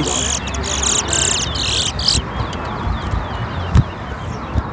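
Towa towa seed finch singing a rapid, buzzy song of quick high notes for about two seconds. In a song-count race each such song is one counted song. Faint chirps from other birds, and two short thumps near the end.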